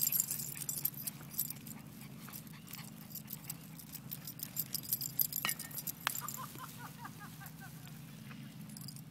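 Small dog's harness tags jingling and clicking as a Yorkshire terrier trots on a paved path, busiest in the first second and again around five seconds in. A short run of faint, quick high chirps comes in about six seconds in.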